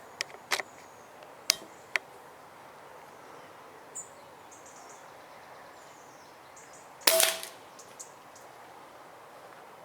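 An air rifle firing once, a single sharp shot about seven seconds in, after a few sharp clicks in the first two seconds.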